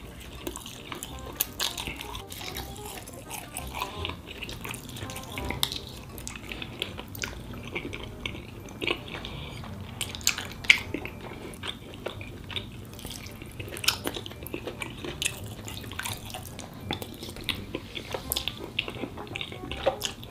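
Close-miked ASMR eating sounds: wet chewing and mouth smacks, with many sharp, irregular clicks as a fork works through black bean noodles in a glass bowl.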